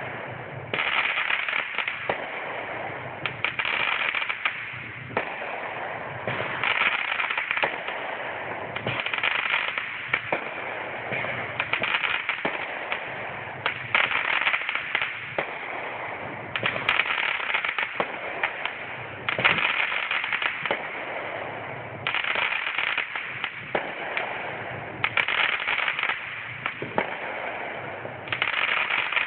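Fireworks going off in a long run of rapid crackling pops. The pops come in denser, louder clusters about every two seconds.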